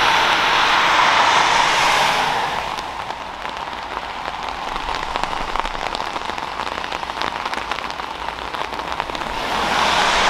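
Heavy rain pattering on a hard surface close to the microphone, with many distinct drop ticks. A louder steady rushing noise fills the first two seconds or so, and it swells back up near the end.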